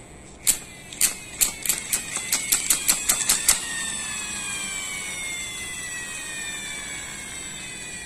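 Plastic toy dump truck's wheels and gearing being spun up. A run of clicks speeds up over about three seconds, then gives way to a whine that slowly falls in pitch as the wheels spin down.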